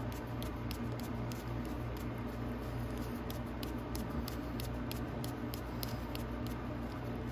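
Small irregular clicks and taps of a screwdriver and gloved fingers tightening a battery terminal bolt, over a steady low hum.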